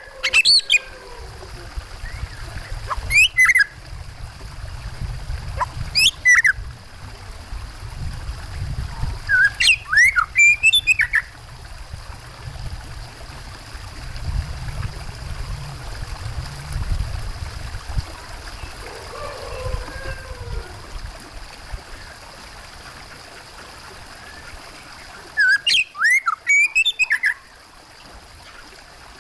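Oriental magpie-robin (kacer) calling in about five loud bursts of sharp, sliding chirps a few seconds apart, with a long pause before the last. Under the calls is a steady low rush of running water.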